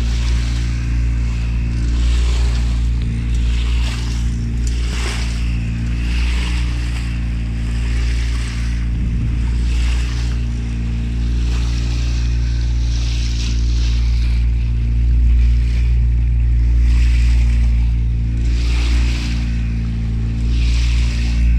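A boat's engine running steadily at a constant speed, under water rushing and hissing along the hull in surges every second or two.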